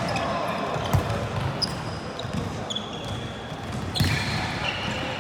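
A volleyball being struck twice, about three seconds apart, with sneakers squeaking on the gym court in between over a hubbub of voices.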